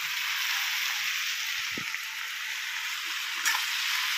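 Chopped tomatoes and onions sizzling in hot oil in a kadhai, stirred with a metal spatula: a steady frying sizzle, with a sharp tap of the spatula about three and a half seconds in.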